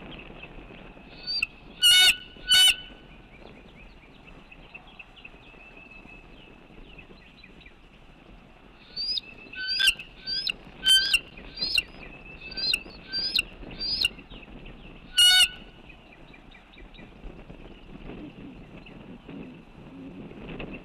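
Loud, short bird calls: two about two seconds in, then a run of about ten spaced roughly half a second apart from about nine seconds in, and one more near fifteen seconds. A faint steady high background sound runs underneath.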